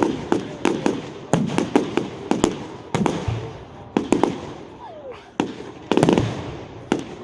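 Fireworks display: aerial shells bursting in a rapid, irregular series of more than a dozen sharp bangs, each followed by a fading echo.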